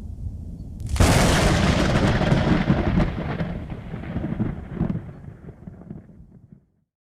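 A thunderclap: a low rumble builds, a sharp crack breaks about a second in, then a long rolling rumble fades away and cuts off near the end.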